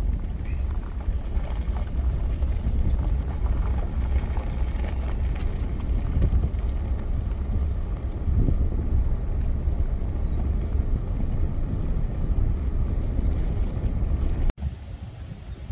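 Wind buffeting the microphone through an open vehicle window while driving, with low road rumble. It cuts off sharply near the end, leaving a quieter, gusty hiss.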